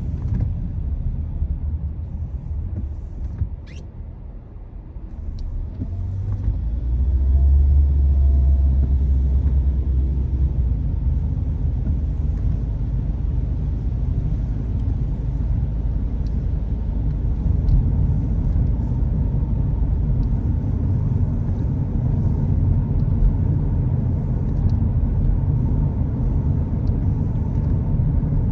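Low, steady rumble of a car driving on the road. It drops off briefly about four seconds in, then builds again as the car picks up speed and stays steady.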